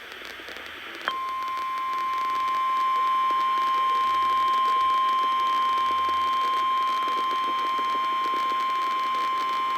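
NOAA Weather Radio warning alarm tone relayed over a radio broadcast: after a second of faint hiss, a single steady high tone starts abruptly and holds without change. It signals that a new weather warning is about to be read.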